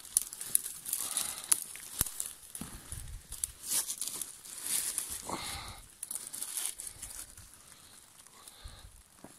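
Dry fallen leaves and twigs rustling and crackling as a hand pushes through the leaf litter, in uneven bursts with scattered sharp snaps.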